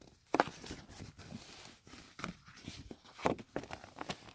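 Irregular paper rustling with soft knocks and taps: a picture book being handled and its page turned.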